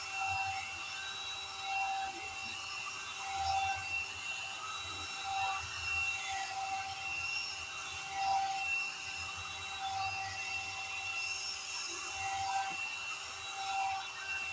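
Handheld hot air brush (hair dryer brush) running steadily: a motor-and-fan whine that swells and fades every couple of seconds as it is drawn through the hair.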